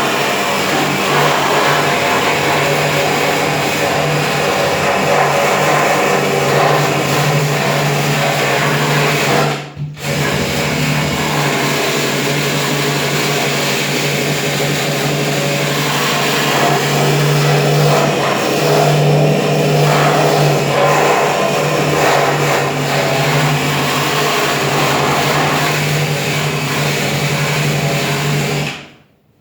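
Handheld electric sanding tool running steadily as it grinds corrosion off a steel car tailgate, with a steady hum under the grinding. It stops briefly about ten seconds in, starts again, and shuts off just before the end.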